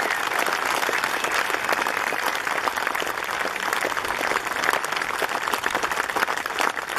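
A crowd applauding: steady, dense clapping from many hands.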